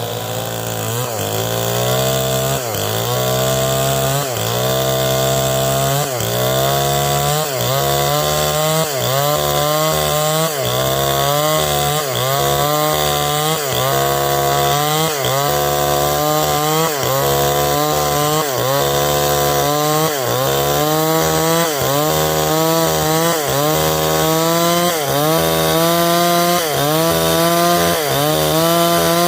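Stihl 070 chainsaw's large two-stroke engine running hard while ripping a log lengthwise, its pitch sagging and recovering over and over, about every 0.7 s, as the cut loads and eases.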